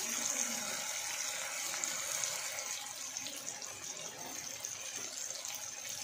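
Onion and tomato masala sizzling steadily as it fries in a pan, an even hiss.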